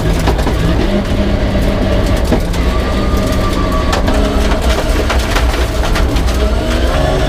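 Peugeot 306 rear-wheel-drive rally car's engine running hard on a stage, its pitch stepping up and down through gear changes, with many sharp knocks and clatters through the car.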